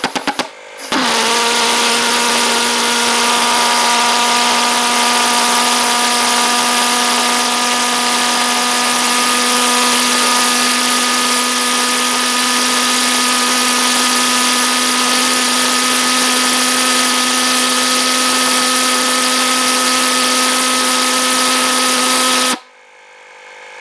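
Small Hobbyking RC pulse jet engine catching about a second in and running at full thrust: a loud, steady buzzing drone at one fixed pitch over a strong exhaust hiss. It stops suddenly near the end.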